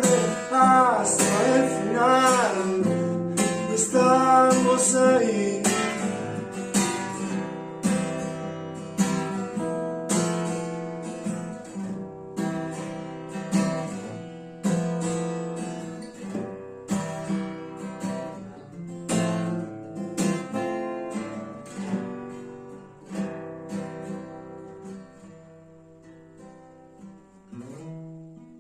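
Acoustic guitar strumming chords in a song's instrumental passage, with a melody sliding in pitch over the first few seconds; the music gradually gets quieter.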